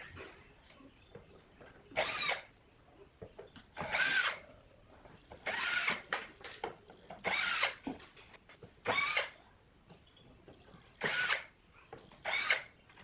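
Power drill run in about seven short bursts a second or two apart, its motor whine rising and falling with each trigger pull.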